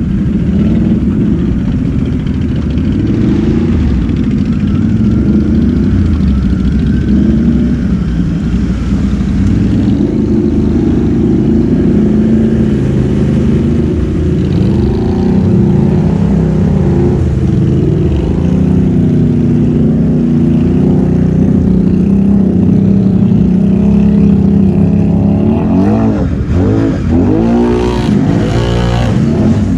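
Can-Am Renegade XMR 1000R ATV engines running at working throttle while wading through a creek, with water sloshing and spraying around the machines. Near the end the throttle is blipped up and down several times.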